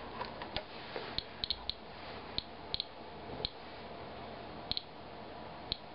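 Inspector Alert Geiger counter clicking at irregular intervals, about two short chirps a second, each one a detected radiation count. The rain sample reads about 116 counts per minute, more than three times the 34.8 counts-per-minute background.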